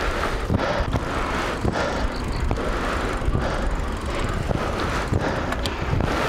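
Bicycle riding along: wind rushing over the microphone with tyre noise, a steady rumble with a few light clicks.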